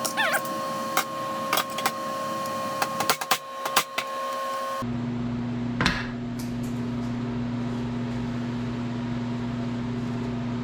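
Hand tools clicking and tapping on metal as a stubborn bearing seal is worked out of a dirt bike part, with a brief squeak near the start. Under it runs a steady electrical hum, which drops to a lower pitch about five seconds in.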